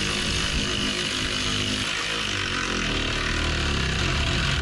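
A handheld power tool running steadily, driving nuts down onto the U-bolts that hold the axle; it cuts off suddenly near the end.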